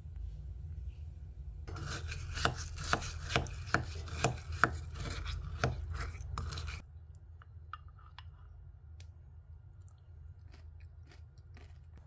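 Wooden spoon stirring crunchy roasted grains through yogurt in a glass tumbler: scraping and crunching with sharp taps of the spoon against the glass for about five seconds, followed by faint scattered clicks.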